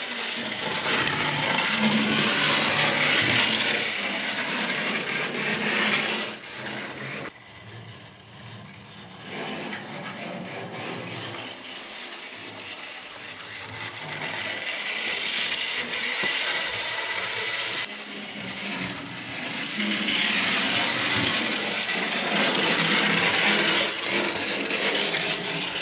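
Motor and wheels of a model double-deck tram running along the model railway track with a steady whirring, rattling sound. It is louder for about the first six seconds, quieter for a stretch, and louder again from about twenty seconds in.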